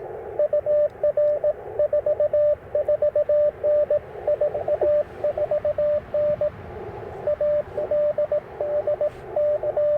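Morse code (CW) from an Icom IC-705 ham transceiver: a clean, steady beep keyed in dots and dashes at a brisk pace, with a short pause a little after halfway. Behind it runs the hiss of the radio's narrow CW receive filter, with fainter signals wavering in it.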